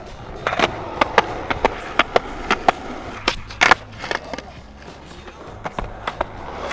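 Skateboard rolling on a concrete sidewalk, its wheels clacking in quick pairs over the joints in the pavement about twice a second, with a louder clatter of the board about three and a half seconds in.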